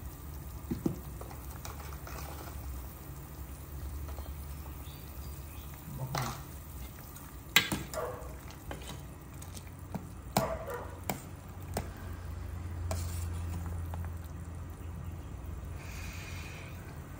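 Metal ladle stirring a stainless steel pot of simmering soup, with scattered clinks and knocks against the pot, the loudest about halfway through. A low steady hum runs underneath.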